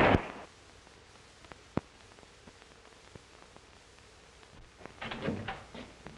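Old film soundtrack: a loud sound cuts off right at the start, leaving faint hiss with a few soft clicks. Near the end come a few seconds of indistinct knocks and shuffling.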